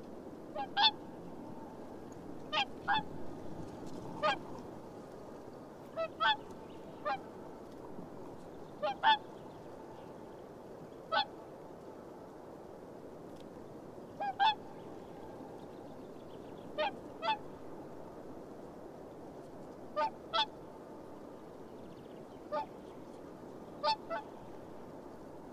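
Whooper swans calling: short, honking, trumpet-like calls, often two in quick succession, repeated every one to three seconds over a steady low background hiss.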